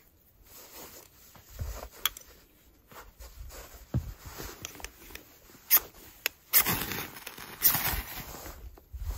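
Ferro rod scraped with a steel striker over a tinder bundle to throw sparks: a few sharp clicks in the first half, then several short hissing scrapes in the second half.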